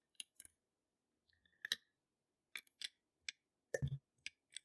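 Small metallic clicks and ticks of a pin-tumbler challenge lock being worked with its key, about nine irregular clicks, the loudest with a dull knock near the end.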